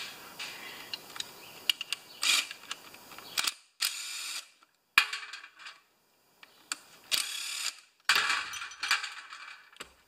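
Cordless power driver with a 3/8 socket running in several short bursts, backing out the fasteners on a small-engine carburetor, with a few metal clicks of parts against a metal pan.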